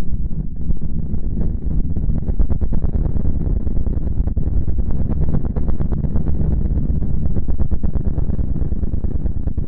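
Spacecraft radio-wave recording attributed to Mercury, shifted into the audible range: a loud, deep, steady rumble with a dense, fast crackle over it.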